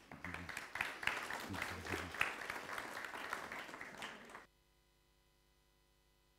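Congregation applauding, a dense patter of many hands clapping for about four and a half seconds, then stopping abruptly.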